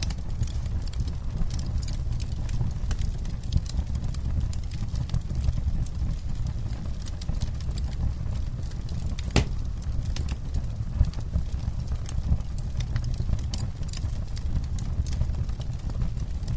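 Campfire burning: a steady low rumble under irregular sharp crackles and pops, with one louder snap about nine seconds in.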